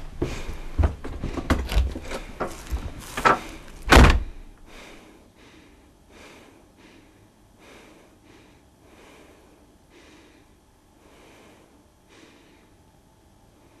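A rapid run of knocks and thumps ending about four seconds in with one loud bang, then faint breaths about once a second.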